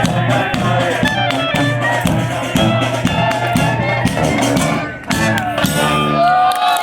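Klezmer band playing a lively tune over a steady drum beat; about five seconds in the rhythm breaks off and the band holds a sustained chord, with notes sliding up and down over it near the end.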